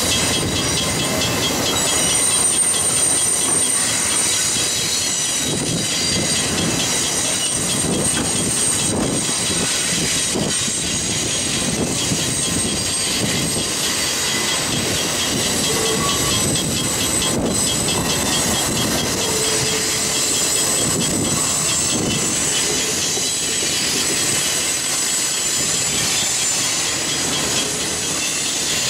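Freight train's autorack cars rolling past, their steel wheels making a steady rumble and clatter, with a continuous high-pitched squeal from the wheels on the rails.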